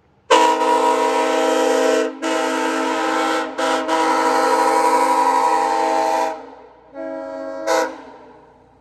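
Nathan Airchime K5CA-LS five-chime train horn blowing a loud chord of several notes at once: a long blast broken twice by very brief gaps, trailing off about six seconds in, then a shorter, softer blast with a brief louder burst at its end.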